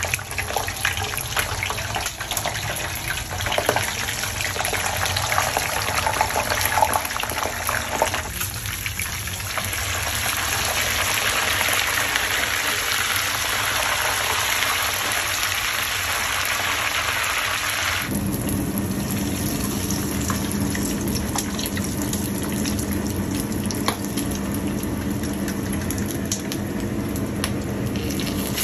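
A whole duck deep-frying in hot oil in a wok: the oil sizzles with dense sharp crackling for the first several seconds, the wet skin just in the oil, then settles into a steadier hiss. A steady low hum joins about two-thirds of the way through.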